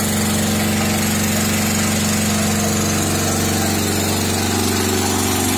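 Sakura Storm D9000E portable generator running steadily with an even hum while hooked to a load bank for a load test.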